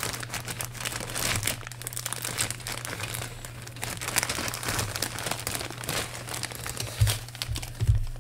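Thin plastic parts bags crinkling and rustling continuously as a plastic model kit sprue is worked into one and a small bag of clear parts is handled. Two soft thumps come near the end, about a second apart.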